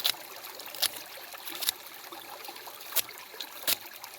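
Water trickling steadily, with about five sharp clicks or knocks spread irregularly through it.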